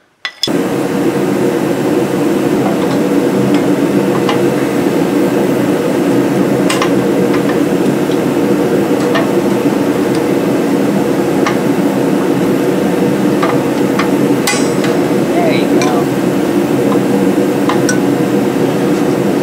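A steady loud droning noise that starts abruptly about half a second in, with scattered light metallic clicks and taps as drum-in-hat parking-brake shoes and their springs are handled and fitted on the hub's backing plate.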